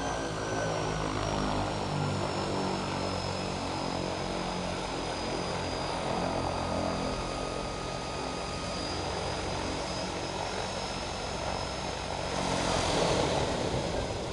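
Air Tractor firefighting plane's turboprop engine running with the propeller turning as the plane taxis: a steady drone with a thin high whine that slowly drops in pitch, swelling louder about twelve seconds in.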